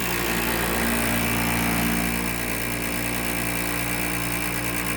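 Vintage window air conditioner starting up: the compressor and fan come on suddenly with a loud roar and a steady low hum. After about two seconds it eases slightly; it is meant to quiet down once it builds head pressure.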